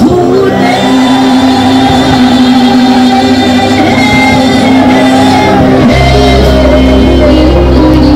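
A woman singing a Bengali folk song live into a microphone, backed by a band. A low bass layer comes in about six seconds in.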